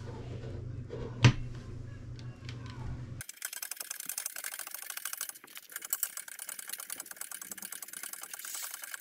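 Transmission gears being handled on a workbench over a low hum, with one sharp metal clink about a second in. After about three seconds, rapid, dense mechanical clicking and rattling as a hydraulic shop press is pumped to press the new gears onto the Subaru 5-speed gearbox shaft.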